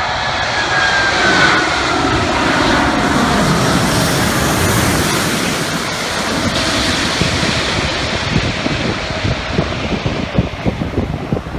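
Airbus A380 with Rolls-Royce Trent 900 engines passing low overhead on final approach. A high engine whine falls in pitch as it goes over, under a broad jet roar that is loudest mid-pass. It then gives way to a gusty, irregular buffeting rumble in the last few seconds.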